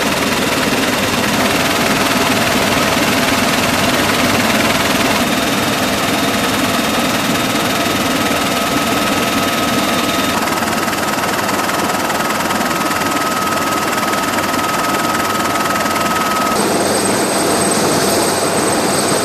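Marine AH-1Z and UH-1Y helicopters running, their twin turbine engines and rotors making a steady rushing noise with a thin turbine whine over it. The sound changes abruptly a few times, and a higher-pitched whine takes over near the end as a UH-1Y is heard close up.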